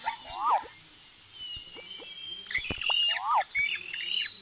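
Birds chirping and calling. A short rise-and-fall call repeats twice, with higher chirps and trills in between.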